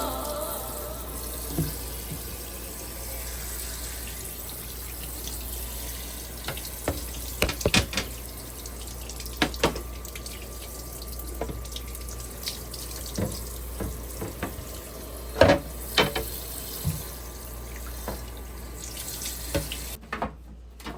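Kitchen tap running into a sink while fridge shelves and drawers are washed, with scattered knocks and clatters as they hit the sink. The water shuts off near the end.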